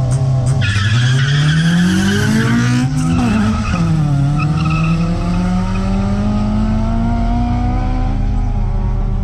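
Two cars launching from a standing start in a drag race, tyres squealing as the engines rev hard about half a second in. A gear change comes near three seconds, then the engines pull up through the gears as they speed away.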